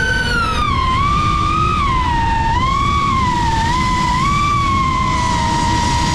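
High-pitched whine of FPV drone motors, rising and falling with the throttle, over a steady rush of wind noise. The pitch drops noticeably about half a second in, then wavers up and down.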